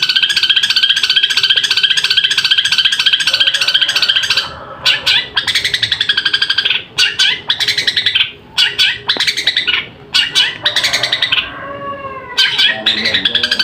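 Long-tailed shrike (cendet) singing: a fast, harsh, even chatter, then from about four and a half seconds in a varied run of short broken phrases of the mimicked songs (isian) it is kept for. The fast chatter returns near the end.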